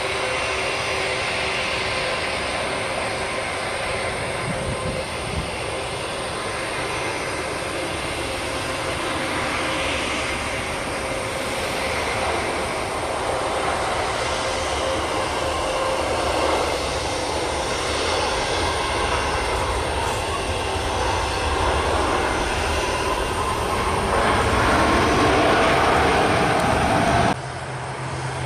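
Jet noise from a Boeing 737 MAX 8's CFM LEAP-1B engines as the airliner flies its final approach and lands, a steady rushing whine that swells louder for a few seconds near the end. Just before the end it cuts abruptly to the quieter, steadier hum of another jet, a Boeing 737-500, rolling on the runway.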